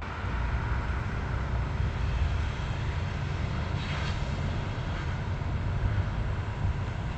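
Steady outdoor rumble with an even hiss over it, typical of distant traffic, starting abruptly as the scene cuts in.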